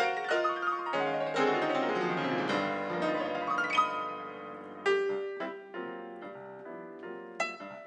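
Solo grand piano playing a jazz improvisation: fast, dense runs at first, then sparser, separately struck chords with a few sharp accents from about five seconds in.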